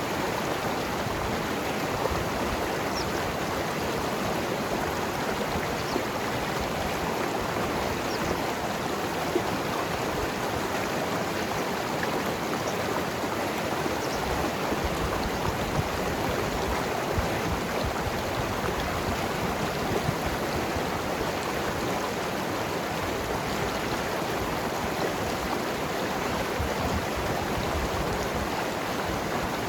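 A mountain river running steadily over rocks, a continuous rushing with small splashes and gurgles scattered through it.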